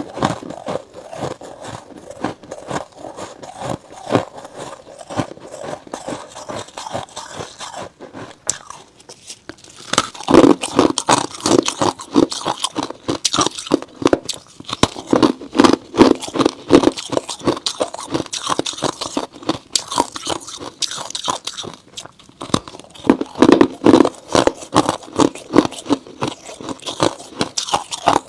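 Freezer frost being bitten and chewed close to the microphone: dense, rapid crunching. It is quieter for the first nine seconds or so, pauses briefly, and from about ten seconds in turns louder as a fresh chunk is bitten.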